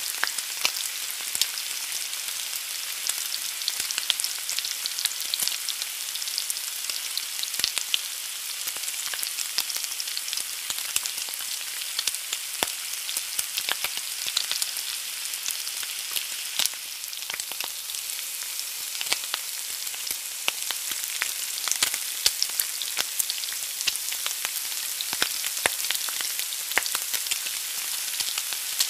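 An egg frying in a pan: a steady sizzle with frequent small pops and crackles.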